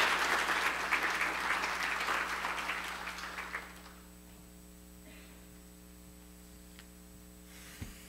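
Church congregation applauding, the clapping dying away after about three and a half seconds. A steady electrical hum remains, with one soft knock near the end.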